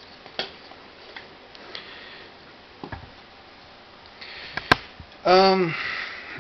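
Light clicks and taps of snap-fit plastic model-kit parts being handled and the figure set down on a wooden table, with one sharper click about four and a half seconds in. Shortly after comes a brief hum from a voice that falls in pitch.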